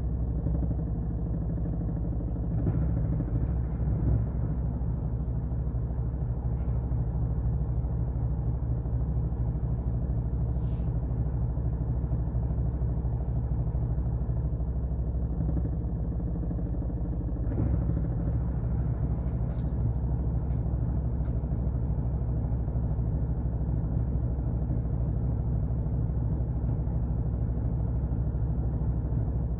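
Washing machine running with a steady low motor hum and rumble, with a few brief knocks from the drum.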